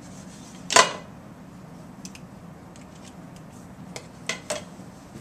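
Sharp plastic clicks of dry-erase markers handled at a whiteboard easel's marker tray: one loud clack a little under a second in, a few light taps, then two quick clicks near the end.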